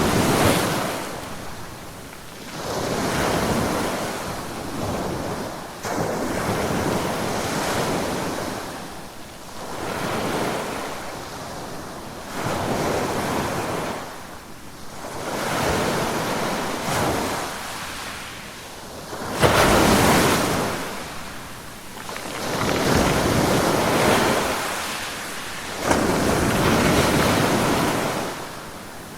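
Ocean waves breaking and washing in, one after another every few seconds, each surge swelling and fading. A few land with a sudden, louder crash.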